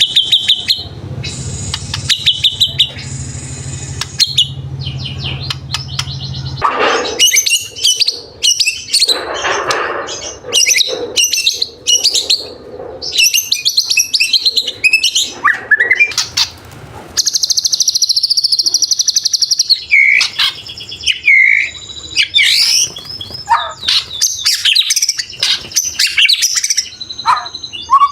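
White-rumped shama (murai batu) singing a varied, rich song of rapid repeated notes, chattering phrases and sliding whistles, with a long buzzy trill about two-thirds of the way through. A low hum sits under the first six seconds.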